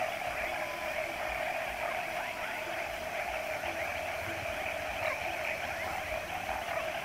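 Steady night chorus of insects and frogs: a continuous droning buzz with many small chirps running through it.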